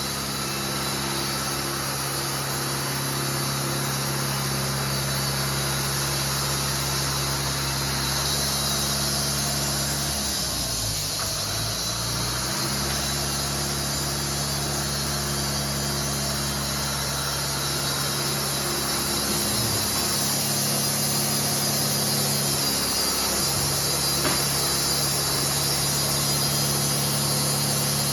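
The sawmill's 120 hp John Deere engine runs steadily, with the engine note dropping and recovering briefly about ten seconds in and twice more later.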